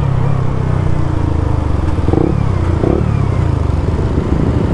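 Suzuki GSX-R150's single-cylinder engine running steadily through a Prospeed Black CNC aftermarket full-system exhaust while the motorcycle is ridden.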